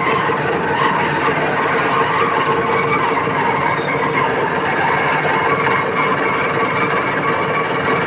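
Lathe running steadily for a drilling operation: a constant machine hum with a thin, high whine over it.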